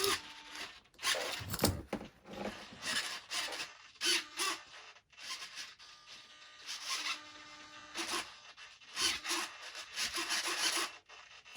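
Irregular rubbing and scraping as parts of a foam model airplane are handled and worked on at the bench, with a few brief faint whines in between.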